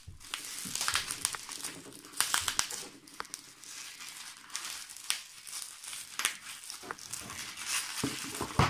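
Clear plastic packing wrap crinkling and crackling irregularly as it is pulled and peeled off a small cardboard box by hand.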